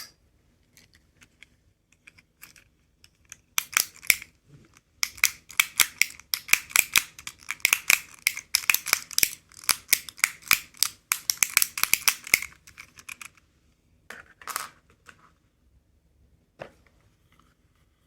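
Rapid, irregular light plastic clicking and clatter from handling small plastic capsule toys. It begins sparse, turns dense from about four seconds in, stops around thirteen seconds, and is followed by a short burst and one last click.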